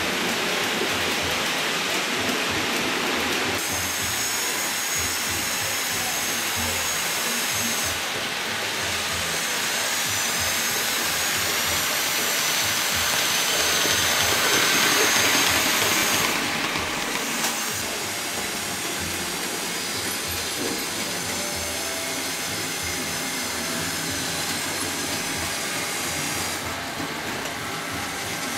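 Model railway train running on the layout: a steady whirring rumble of metal wheels on the rails with a faint high motor whine, growing louder as a rake of passenger coaches passes close by about halfway through, then easing off.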